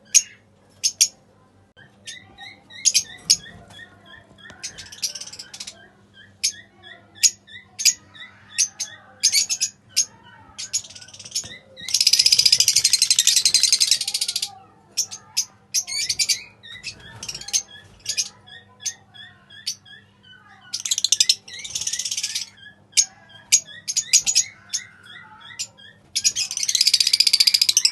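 Pale fallow lovebirds chirping: many short, sharp, rapid chirps, broken three times by loud stretches of dense, harsh chattering screeches about two seconds long each, near the middle, about three-quarters of the way through and near the end.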